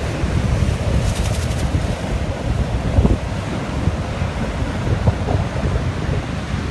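Strong gusting wind buffeting the microphone with a heavy low rumble, over the steady wash of high surf on the beach.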